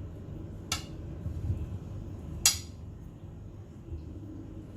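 Two sharp clinks of kitchenware, a utensil or dish knocking against a bowl as the pressed potatoes are moved into it, the second about two seconds after the first and louder, over a low steady hum.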